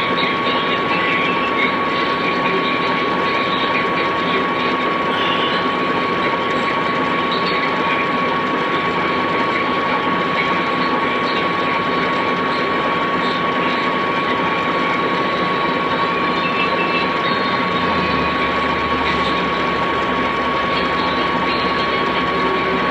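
Funai VCR mechanism running with a steady whir and a high, constant whine. A lower hum joins at about 18 seconds in.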